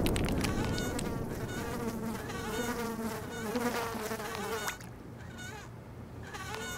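A housefly buzzing, its pitch wavering as it flies about, over the rumble of a cannon blast dying away at the start. The buzz drops away about five seconds in.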